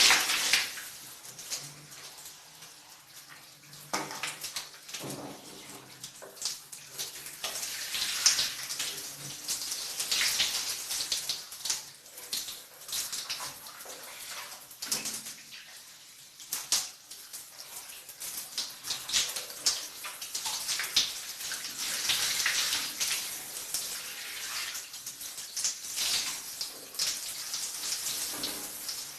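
Shower running, water spraying and splashing unevenly, in a spatter that swells and drops from moment to moment.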